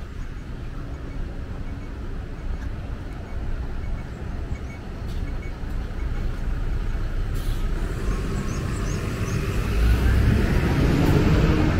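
Road traffic on a city street: a bus's engine running close by with a steady low rumble, the traffic noise swelling louder in the last couple of seconds.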